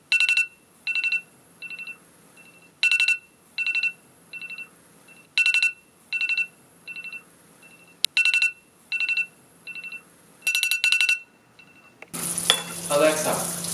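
Smartphone alarm beeping in groups of quick high beeps, each group softer than the last, the pattern repeating about every two and a half seconds. It stops about eleven seconds in, and a louder rushing noise starts just after.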